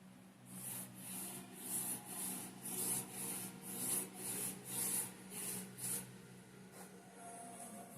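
A varnish brush swept back and forth over an oil painting on canvas: a run of quick, hissing brush strokes at about two a second, stopping about six seconds in.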